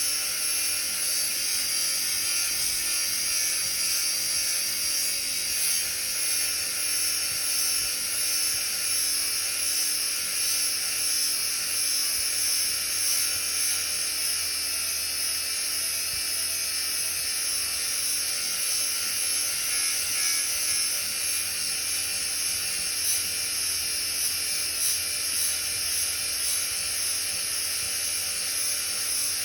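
Grinder running steadily while grinding the steel teeth of a drum mulcher: an even, high-pitched whine and hiss that holds without a break.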